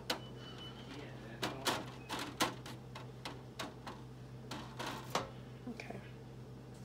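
Spatula scraping and knocking against a disposable aluminium foil pan and a saucepan while sauce is spread and scraped out: a series of sharp clicks and scrapes, some in quick pairs.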